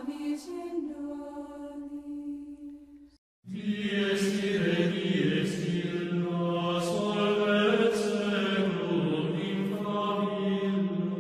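Chanted vocal music. A sung line fades and cuts off about three seconds in, and after a brief silence a new chant begins, with a steady low voice held under the moving melody.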